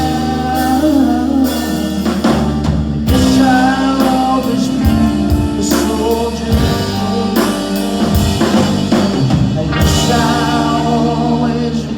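Live rock band playing a slow ballad: held chords with drum strikes and a wavering lead melody line over them.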